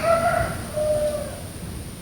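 A sleeping girl snoring: a loud snore breaks off at the start, followed by a softer breath out with a faint thin whistle-like tone in the first second, then quiet breathing.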